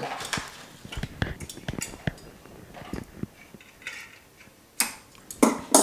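Metal tools and a coin ring clinking and knocking on a workbench: a run of light clicks and taps, with two louder clatters near the end.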